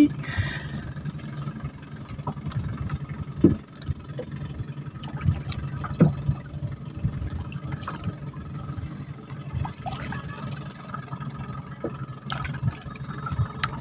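Water sloshing and dripping around a small fishing boat, over a low steady hum, with a few scattered light clicks.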